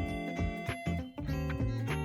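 Background music, a plucked guitar over a steady beat.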